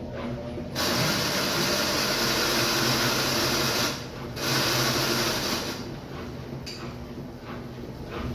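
Brastemp 11 kg washing machine running with a steady low hum. Twice a loud hissing noise comes in over it: first about a second in, then again after a brief break near four seconds. The second burst dies down a little before six seconds.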